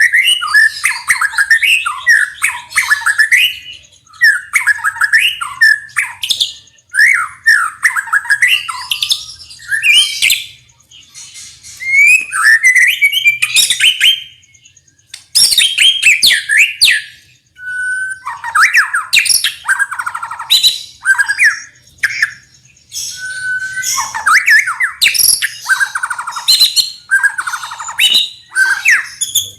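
White-rumped shama singing: a loud, fast run of varied whistled phrases mixed with harsh rattling notes, in bursts with short pauses between them.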